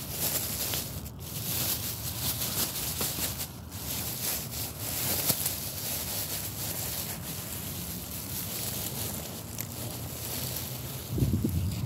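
A kitten crunching dry cat food kibble, many small crisp crunches over a steady rustling hiss, with a low bump near the end.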